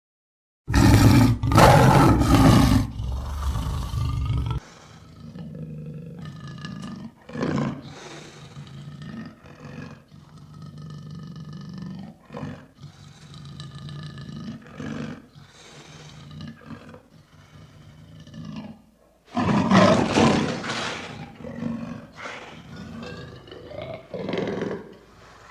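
Lion roaring. A loud roar starts about a second in and lasts some four seconds. It is followed by a long run of shorter, quieter calls, then a second loud roar about three-quarters of the way through.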